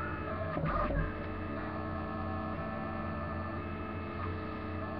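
Delta 3D printer's stepper motors humming and whining while printing, a cluster of steady tones that shift in pitch as the print head moves, with a brief louder rush just under a second in.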